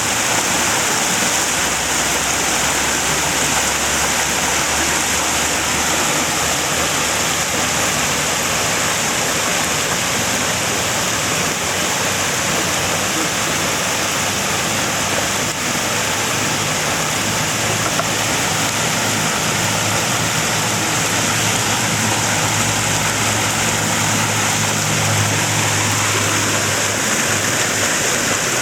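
Floodwater rushing steadily through a brimming drainage ditch. A faint low hum joins about halfway through and fades near the end.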